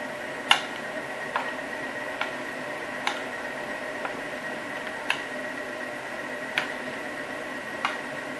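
A spoon clicking and scraping against a bowl as pasta salad is stirred, seven irregular clicks with the loudest about half a second in. Under it, a steady hum from a kitchen extractor hood.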